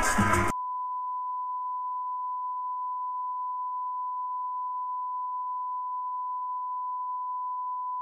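Music cuts off about half a second in and gives way to a steady test-tone beep at one unchanging pitch, the reference tone played under colour bars.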